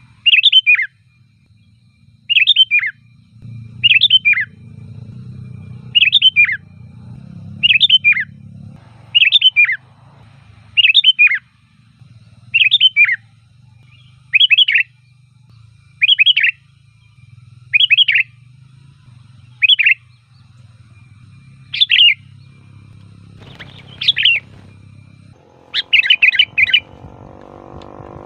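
Sooty-headed bulbul (kutilang) singing a short, bright phrase of a few quick falling whistled notes, repeated about every two seconds, with a quicker run of several phrases near the end. A faint low hum lies underneath, and a louder low rumbling noise comes in over the last few seconds.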